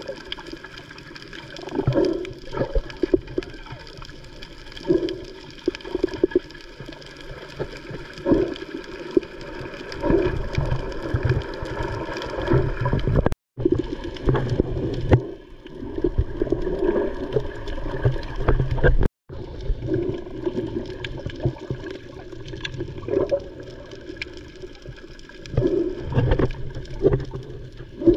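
Muffled underwater sound from an action camera below the surface: water churning and bubbling in uneven surges as swimmers kick with fins nearby, over a steady hum. The sound cuts out completely twice, briefly, about 13 and 19 seconds in.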